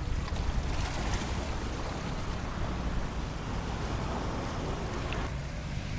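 Wind on the microphone over the steady wash of the sea.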